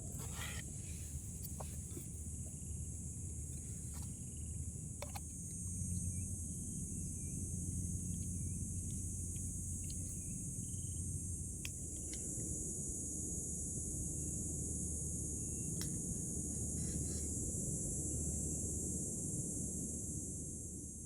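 Crickets or similar insects chirring steadily in a high, even chorus, over a low rumble, with a few small clicks scattered through. It fades out at the very end.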